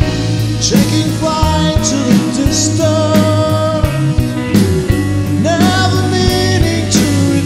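Progressive rock band playing, with a regular beat of sharp hits under held chords.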